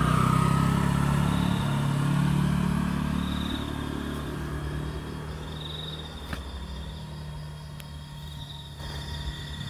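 A passing motor vehicle's engine, loudest at the start and fading away over about five seconds, leaving a low background hum.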